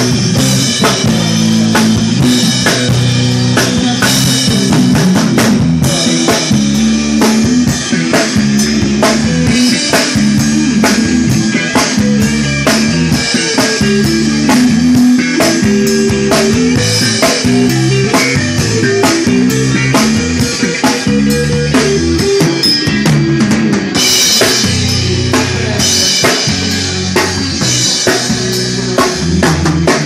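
A live band playing, led by a Pearl drum kit: a steady beat on kick drum, snare and cymbals over guitars and a moving bass line, with the low end growing heavier over the last several seconds.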